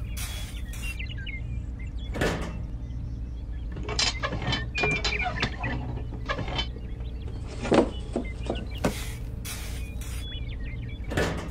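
A small motor running steadily, with scattered clicks, knocks and short squeaks over it.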